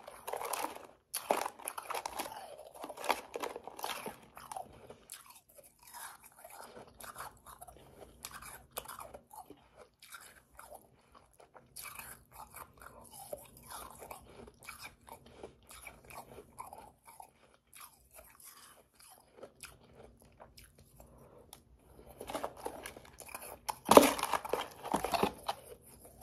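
Powdery, slushy ice being crunched and chewed in the mouth: a run of short crackly crunches, louder over the first few seconds, quieter in the middle, then a loud burst of crunching near the end.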